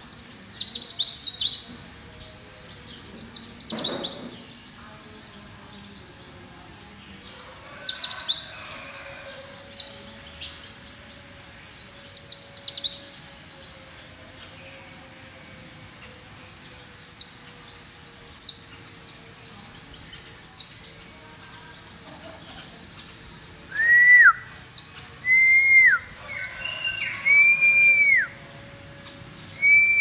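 A caged white-eye (pleci, Zosterops) singing loudly: quick bursts of high, rapidly falling chirps, repeated every second or two. Near the end, a few lower arched whistles join in.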